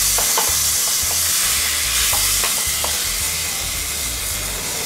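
Marinated pork neck steaks and onions sizzling steadily in a metal roasting tray on a hot gas grill, with a few light clicks of steel tongs against the tray as they are moved about.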